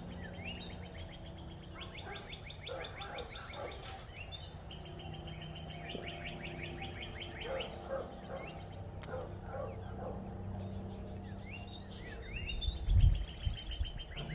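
Songbirds singing: repeated rising whistled notes and rapid trills, overlapping throughout. A brief low rumble near the end.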